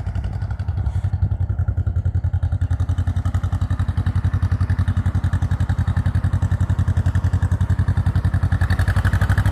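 Small tractor's engine running steadily with an even, rapid chugging beat, getting a little louder near the end.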